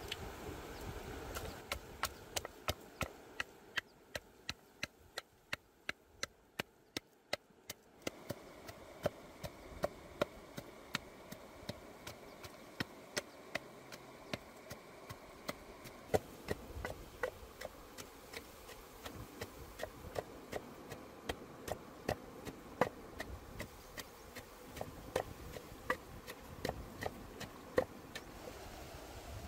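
Repeated sharp chopping strikes, at a steady two or three a second for the first several seconds, then slower and less regular over a faint steady background hiss.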